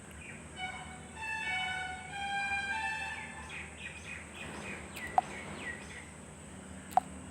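A short melody played through a phone's small speaker: a run of stepped notes, then a string of quick falling chirp-like notes. Two sharp clicks come about five and seven seconds in.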